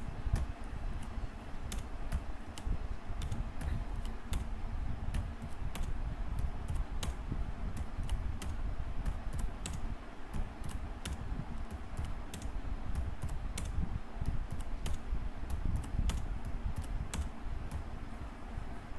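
Typing on a computer keyboard: irregular keystrokes, roughly two a second, over a steady low hum.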